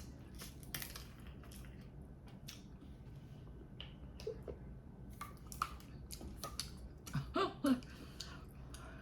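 Close-miked eating: a person chewing, with irregular wet mouth clicks and smacks, and a brief louder mouth sound about seven seconds in.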